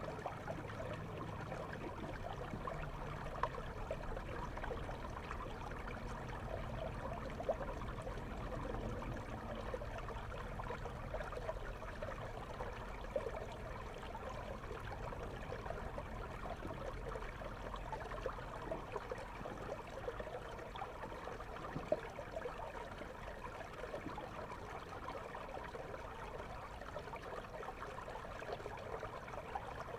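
River water flowing steadily, a constant rush with a few brief clicks.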